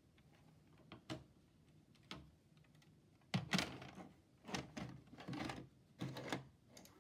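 Plastic knocks and clatters from a VHS cassette being handled: two single knocks, then from about three seconds in a run of louder rattling clacks in four or five quick groups.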